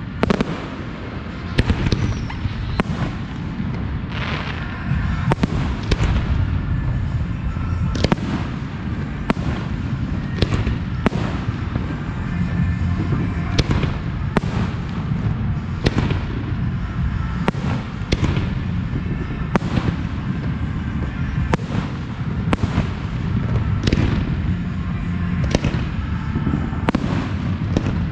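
Professional fireworks display: aerial shells bursting in a steady series of sharp bangs, roughly one a second, over a continuous low rumble.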